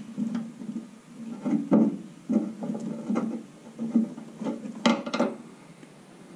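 Hands threading and twisting electrical wires at a pickup's tail-light opening: irregular rubbing and light knocks of wire against plastic. Two sharp clicks come close together about five seconds in.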